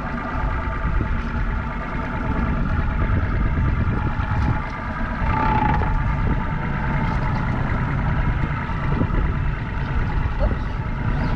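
A boat motor running steadily, over a strong low rumble.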